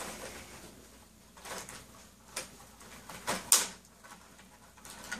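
Tissue paper and cardboard packaging rustling and crinkling in a few short bursts as hands dig through a cardboard box, loudest about three and a half seconds in.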